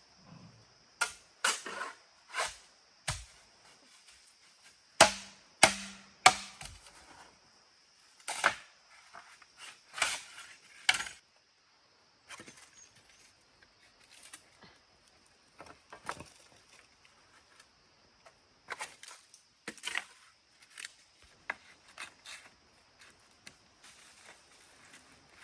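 A tool chopping or knocking on wood: sharp strikes in uneven bunches, loudest in the first half and lighter and sparser after, over a steady high insect buzz.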